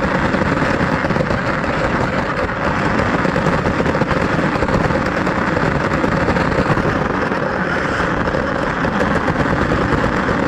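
Radio-controlled car driving over pavement: a loud, unbroken crackling rattle of tyres and drivetrain, with a faint steady whine underneath.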